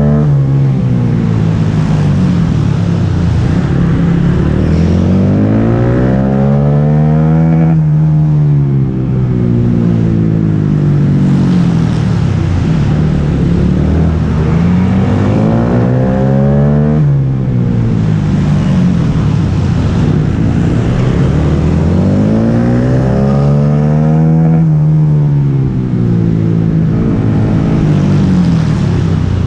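Small motorcycle engine ridden hard around a track, revving up along the straights and falling off into the corners. Its pitch climbs and falls in long sweeps, with a sudden drop every eight or nine seconds.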